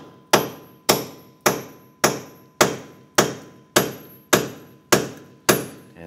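Hammer striking a steel punch held against the end of a Ford Five Hundred's seized rear axle shaft in the wheel hub: ten even blows, about two a second, each with a short metallic ring. The blows are driving the stuck axle splines free of the hub.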